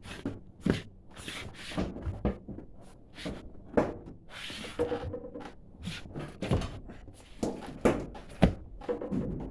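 Irregular knocks, bumps and scrapes of a dryer or washing machine being tipped and lifted by hand.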